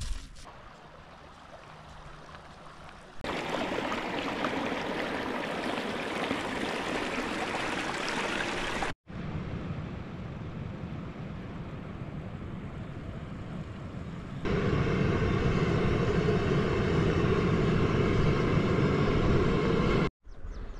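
Steady rushing water across several cut-together shots: quieter at first, fuller from about three seconds in, briefly broken near nine seconds, and loudest and deepest from about fourteen seconds in before it cuts off just before the end.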